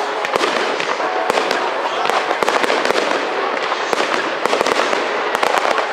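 Fireworks display: aerial shells bursting overhead in a rapid, unbroken volley of bangs and crackling.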